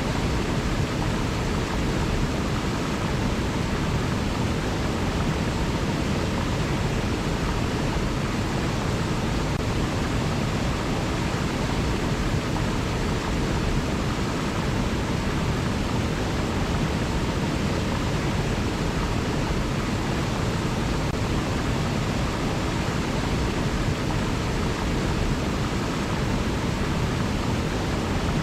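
Flowing river water: a steady, even rush with no changes or separate events.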